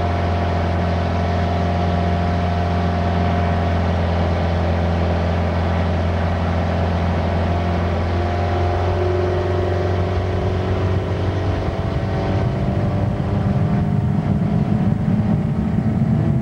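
Motorboat engine running steadily while towing water skiers. After about eleven seconds the sound turns rougher and a little louder, with more rumble and water wash.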